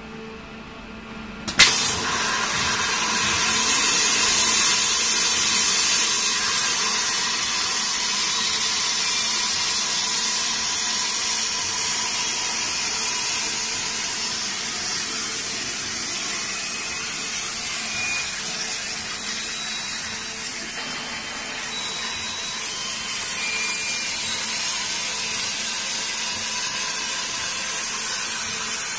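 Waterjet cutter's high-pressure jet switching on with a sharp crack about a second and a half in, then a loud, steady hiss as it cuts glass.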